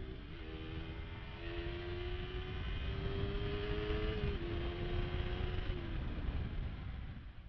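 Single-cylinder engine of a KTM RC 200 running while riding, over a heavy low rumble. The engine note holds steady, climbs slowly, then drops sharply about four seconds in and settles at a steady pitch again.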